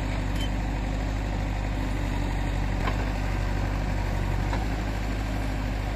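JCB 3DX backhoe loader's diesel engine running steadily while the backhoe digs and swings a load of sand, with a couple of faint knocks.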